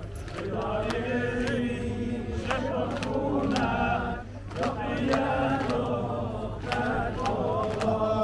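Male voices chanting an Afghan noha, a Shia mourning lament, in long held melodic lines, with a brief break about four seconds in.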